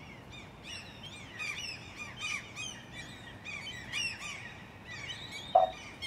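Small birds chirping and singing, a steady run of short rising-and-falling calls, with one brief louder blip about five and a half seconds in.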